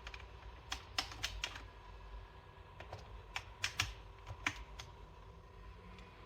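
Keys being pressed on an ASUS ROG laptop's keyboard: about ten short, irregularly spaced clicks, some in quick pairs and runs.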